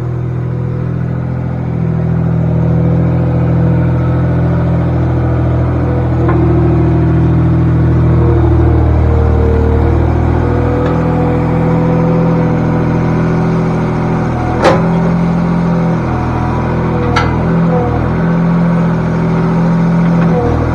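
Farm tractor's diesel engine running steadily, heard from inside the cab, its note shifting a little partway through. A few sharp knocks or clatters come in the second half.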